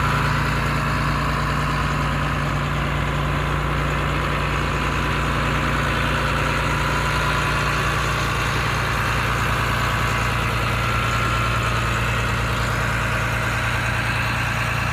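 Caterpillar D3C LGP Hystat crawler dozer's diesel engine idling steadily.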